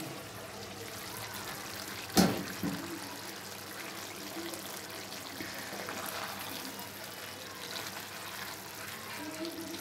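Beef and cauliflower curry simmering in a pan with a steady wet bubbling, a sharp knock about two seconds in, then a wooden spoon stirring through the thick gravy near the end.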